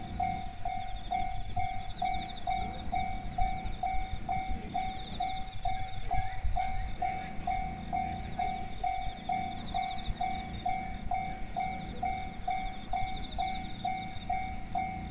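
Japanese railway level-crossing electronic warning bell ringing steadily, about three dings a second, with a low rumble underneath.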